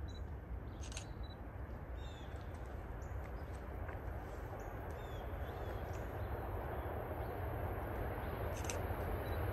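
Small birds chirping a few times in short notes, some sliding down in pitch, over a steady low rumble that slowly grows louder as a distant train approaches down the track.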